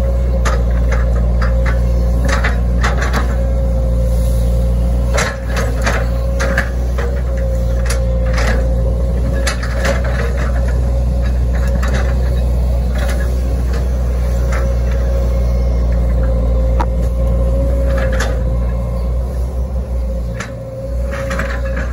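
Hitachi ZX110 excavator's diesel engine running steadily under load, heard from the operator's seat, with a steady high whine over the engine hum. Frequent short knocks and clunks from the boom and bucket as it digs and scrapes through the bank and grass.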